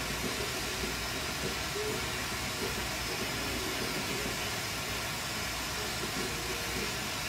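Oxygen-fed glassworking torch flame hissing steadily while glass is melted in it.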